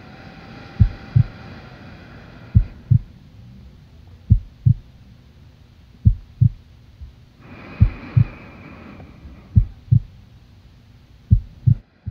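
Slow heartbeat: pairs of low thumps (lub-dub) about every second and three quarters, seven beats in all, over a faint steady hum. A faint high droning tone comes in twice beneath it.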